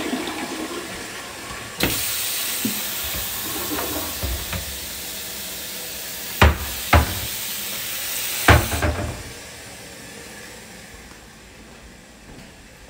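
Steady hiss of water as the toilet tank refills after a flush, starting suddenly about two seconds in and shutting off about nine seconds in. Three sharp knocks from the bathroom vanity's cabinet doors come near the end of the hiss.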